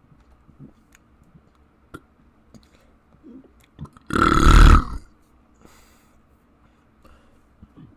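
A single loud human burp about four seconds in, lasting just under a second.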